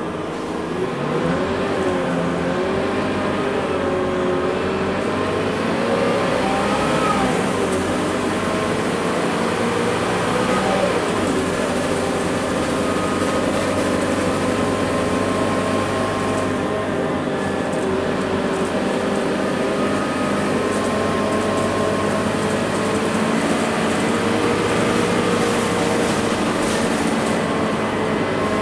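The Scania K230UB city bus's five-cylinder diesel engine and drivetrain, heard from inside the passenger cabin. The pitch rises and falls over the first ten seconds or so as the bus pulls along, then the engine runs steadily at cruise.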